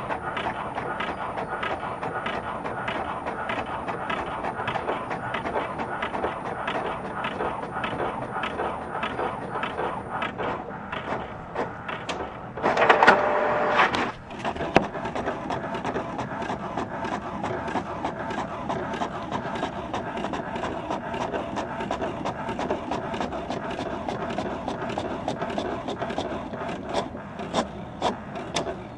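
Paper printer running, a continuous mechanical clatter of rapid ticks over a steady whirr. Just under halfway through there is a louder burst of about a second with a steady hum in it, and then the ticking carries on.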